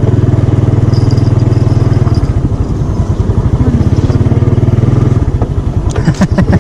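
Small motorcycle engine running as the bike rides slowly along a rough track. About two seconds in, its steady drone gives way to a slower, more separate putter, which quickens again a little after five seconds. A few sharp clacks come near the end.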